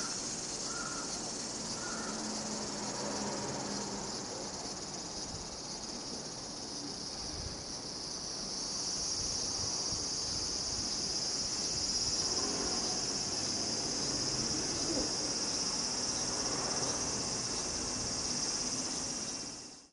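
A steady, high-pitched insect chorus that swells louder about eight seconds in.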